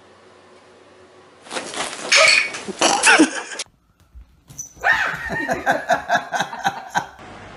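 Pet animal calls in two bursts, the second a quick run of short repeated calls.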